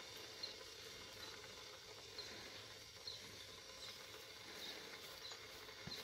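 Faint outdoor background with short, high chirps about once a second, like distant small birds.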